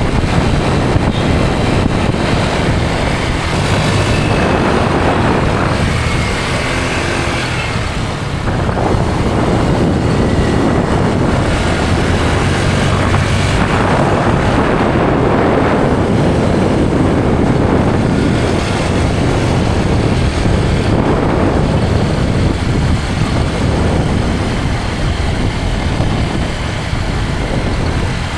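Small motor scooter being ridden on the road: steady engine and road noise with wind on the microphone, easing briefly about eight seconds in.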